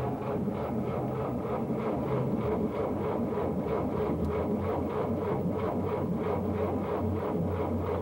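Background film-score music: a dense, steady texture over a sustained low drone, with a fast, even pulsing beat.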